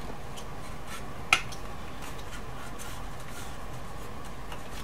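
Light handling of a plastic front-panel housing and its circuit board as they are fitted together, with faint ticks and one sharp plastic click about a second in, over steady background noise.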